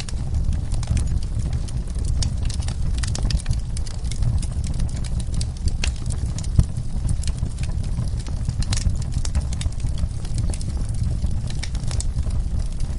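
Wood fire burning in a fireplace, crackling with frequent sharp, irregular pops over a steady low rumble of the flames.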